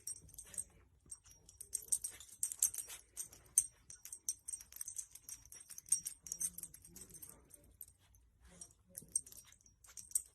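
Faint, light metallic jingling in irregular bursts with short pauses, as a dog's collar tags or bell shake while it moves about.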